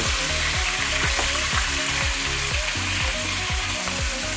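Smoked pork neck bones frying in hot oil in a pot, a steady sizzle while a utensil moves and turns the meat to brown it.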